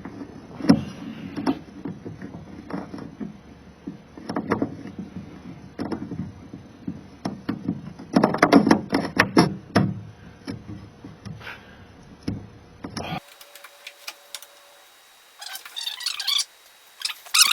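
Irregular clicks, knocks and clatter of hand work on small metal and plastic door-lock parts, busiest about eight to ten seconds in. The sound cuts off suddenly near the end and is followed by quieter scratchy rustling.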